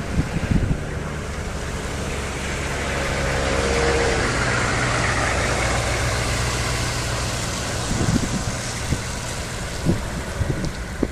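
Motor vehicle running: a steady low engine hum under rushing road and wind noise that swells about four seconds in, with wind buffeting the microphone in short gusts near the start and again near the end.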